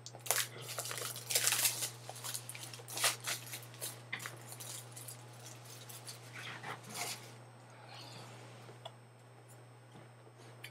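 A box and its packaging being opened by hand: a run of rustling, crinkling and scraping with sharp clicks, busiest for the first seven seconds or so, then quieter with a few scattered taps. A steady low hum sits underneath.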